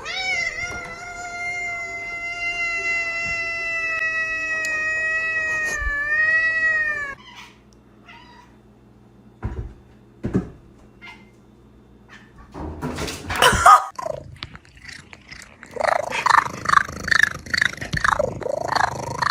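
A domestic cat gives one long, drawn-out yowl lasting about seven seconds, holding a steady pitch and wavering at the end. After a pause comes a short noisy rustle, then a run of shorter, choppy sounds near the end.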